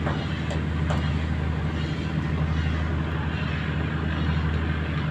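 Boat engine running steadily underway, a constant low hum with a rumbling haze above it.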